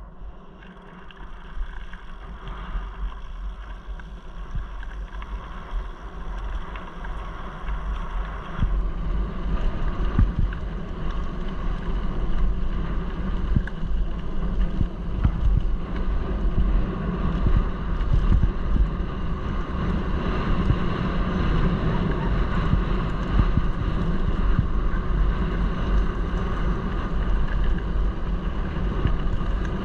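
Mountain bike rolling downhill on a loose gravel track: wind buffeting the microphone, with tyres crunching and the bike rattling over stones in many small knocks. It gets louder about nine seconds in and stays that way.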